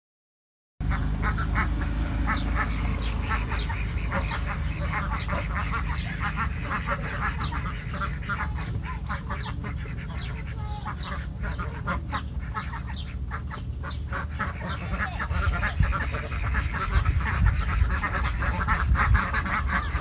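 Flock of domestic ducks quacking, many short calls coming thick and fast and overlapping, over a steady low rumble.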